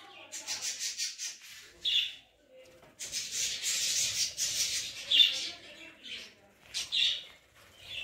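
A flock of budgerigars chattering with long scratchy, rasping warbles, broken by several short sharp chirps.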